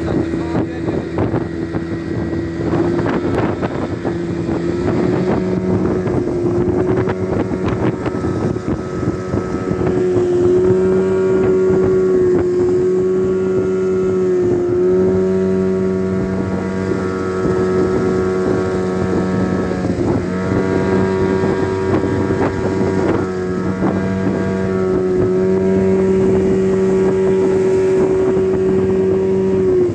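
Motor of a small aluminium boat running steadily under way, holding an even pitch with a few brief dips in engine speed.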